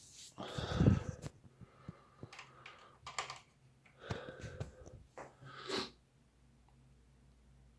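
Scattered clicks of computer keys being pressed and hand-handling noise on a desk, with a louder thump and rustle about a second in and a few more clusters of clicks over the next five seconds.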